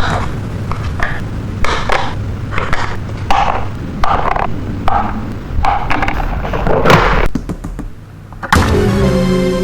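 Rhythmic scraping or rubbing strokes, a little more than one a second, with a steady pitched tone with overtones starting near the end.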